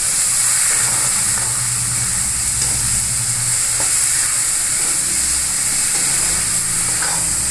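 Onion paste sizzling steadily in hot mustard oil in a steel kadai, being fried (bhuna) with whole spices and ginger-garlic paste, while a metal spatula stirs it with a few faint scrapes against the pan.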